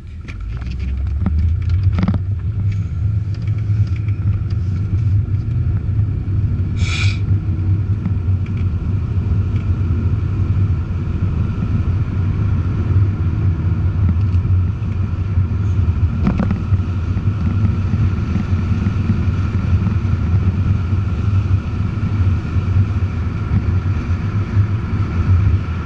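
Mercedes-Benz CLK 430's 4.3-litre V8 and tyre noise heard from inside the cabin: a low drone that swells over the first couple of seconds as the car pulls away, then holds steady at cruising speed.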